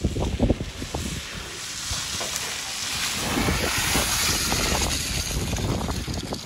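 Toyota RAV4 hybrid driving close past on a wet, muddy track, its tyres splashing through and throwing up mud and water spray: a hiss that swells around the middle and eases near the end. Wind buffets the microphone at first.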